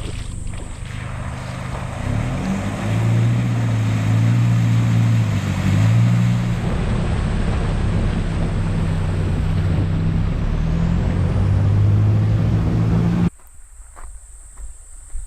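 Toyota Hilux N70 4WD engine running under load on a rough dirt track over road and wind noise, its note stepping up and down as it drives. It cuts off abruptly near the end, leaving quiet bush sounds.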